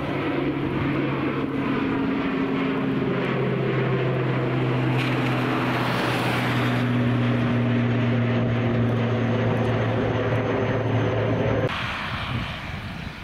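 Twin-engine ATR 72 turboprop climbing out overhead, its propellers making a steady droning tone that sinks slightly in pitch as it moves away. The drone cuts off suddenly about a second before the end, leaving quieter wind noise.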